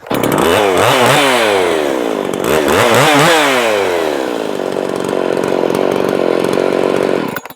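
Ported Makita 5600 (Dolmar 550) 56cc two-stroke chainsaw revved up and back down twice, then running steadily at a lower speed until it cuts off near the end. The cylinder is ported with a raised exhaust port roof, and the owner feels it gained about 1,000 rpm.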